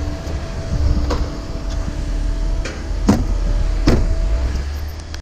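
Motor vehicle running: a heavy, steady low rumble with a steady hum over it, and two short, sharp knocks about three and four seconds in.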